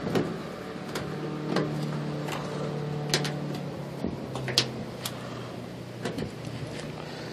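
A few short, sharp clicks and taps of a pickup's fuel filler door being worked loose by hand, over a steady low hum.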